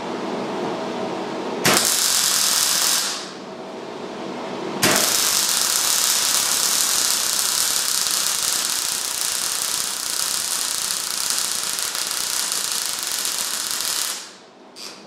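MIG (wire-feed) welder arc crackling and hissing as a steel brace plate is welded onto an axle casing: a short run of about a second and a half starts suddenly about two seconds in, then a long run of about nine seconds stops abruptly, followed by one very brief burst near the end.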